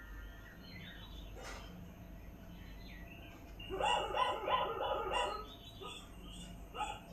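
An animal call sound effect: a quick run of short, pitched calls repeating several times a second, starting about three and a half seconds in, with a few more short calls near the end.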